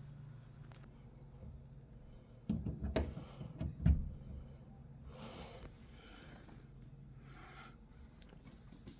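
A cluster of knocks, then several short rubbing, scraping sounds, over a faint steady low hum.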